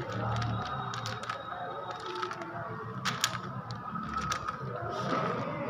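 Plastic 3x3 Rubik's cube being turned by hand: a string of quick clicks and clacks as the layers rotate, loudest about three seconds in, over a steady background hum.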